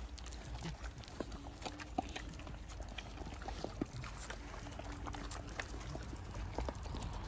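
Several dogs eating treats together: scattered crunching, licking and small clicks and taps as they nose at the food on stone.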